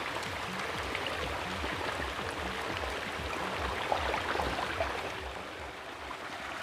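Water splashing and churning steadily as a dense shoal of baby hybrid magur catfish thrash at the pond surface while feeding, with a faint regular low beat underneath.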